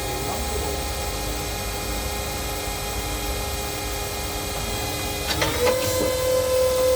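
Nakamura-Tome TMC-15 CNC lathe running with a steady machine whine. About five seconds in there are a few clicks, and the whine steps up in pitch and gets louder.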